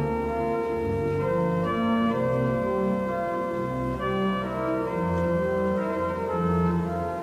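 Organ playing slow, sustained chords, with the bass moving to a new note about once a second.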